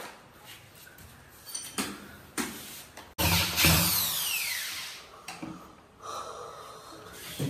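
Electric drill run in one short burst about three seconds in, driving the screw for a cabinet door handle, its pitch falling as it slows. A few light knocks of handling come before and after it.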